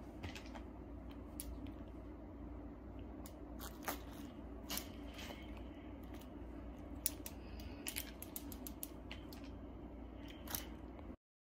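Handling noise from a handheld phone: scattered light clicks and rubs as a hand moves close to it, over a steady low room hum. The sound cuts off suddenly near the end.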